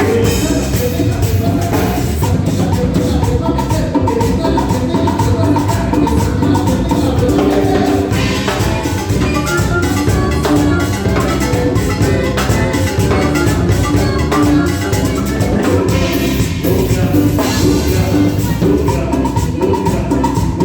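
Live band playing Latin dance music, with drums and percussion keeping a steady beat.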